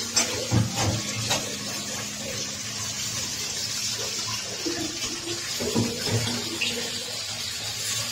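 Tap water running steadily during a cat's bath, with a few light knocks in the first second or so.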